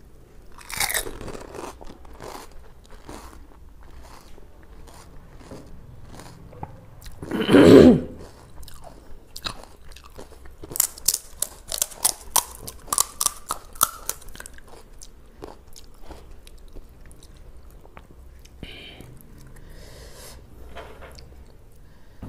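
Close-miked chewing and crunching of a crisp pani puri shell filled with spiced water, with one loud burst about eight seconds in. Around the middle comes a quick run of sharp crackles, fitting a fresh fried puri shell being cracked open with a thumb.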